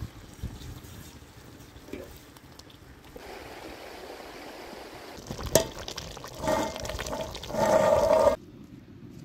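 Water pouring, starting about three seconds in and growing louder in two surges before it cuts off suddenly near the end. A single sharp click comes about halfway through.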